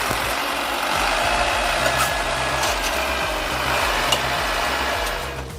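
Engine of a heavy machine running steadily, with a low rumble under a dense, noisy mechanical din. It eases off shortly before the end.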